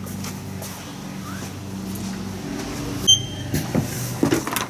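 A steady low machine hum, then a sharp metallic click with a short ring about three seconds in and a few knocks near the end as a door is opened.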